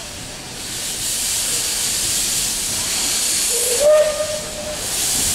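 Steam hissing from a Beyer Peacock 2-4-0 tank locomotive, with low jets of steam escaping along the track, growing louder within the first second. About four seconds in, a short whistle of about a second rises briefly, then holds.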